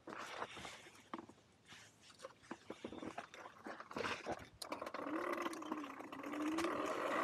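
Electric dirt bike at low speed: for about five seconds only faint scattered clicks and ticks are heard. Then the motor's wavering whine comes back and grows louder as the bike picks up speed.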